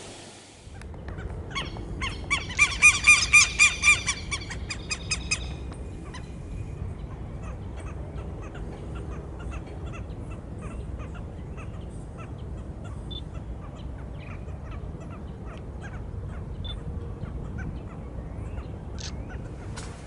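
Southern lapwing calling: a rapid run of loud, ringing calls at about four a second for some four seconds, fading at the end. Fainter scattered short calls follow over a low steady rumble.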